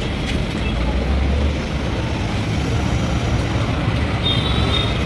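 Steady rumble of motor vehicles, with a short high-pitched squeak about four seconds in.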